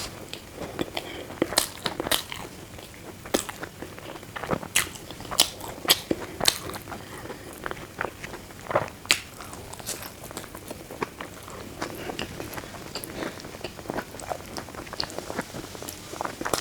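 Close-miked eating: a person biting and chewing food, with irregular crunches and wet mouth clicks.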